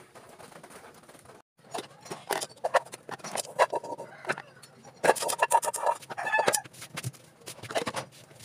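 Clinks and knocks of a metal cooking pot being handled as rice is set to cook, with a run of short clucking calls, as from a hen, about halfway through.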